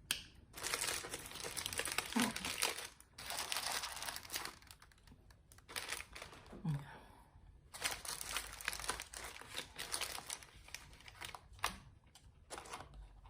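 Crinkling and rustling of wrapping, handled in several irregular stretches of a second to a few seconds with short pauses between.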